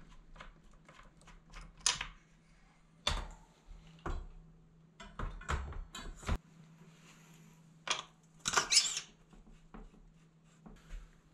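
Metallic clicks and rattles of a bicycle chain and rear derailleur as a rear wheel is fitted into the frame's dropouts, with a louder scraping burst about eight seconds in.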